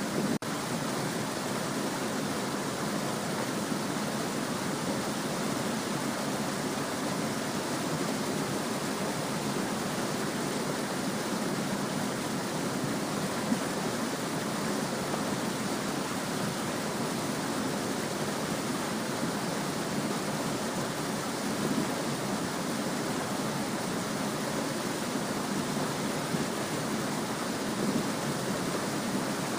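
Small stream babbling: a steady, even rush of running water with no distinct splashes.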